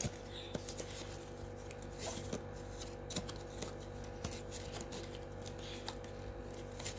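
Hands unpacking a GoPro waterproof housing case: scattered light rustles and small plastic clicks over a steady faint hum.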